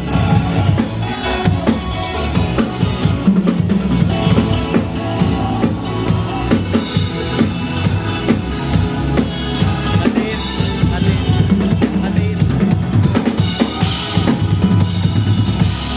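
Drum kit played live within a full piece of music, with bass drum, snare and rimshot hits driving a steady groove.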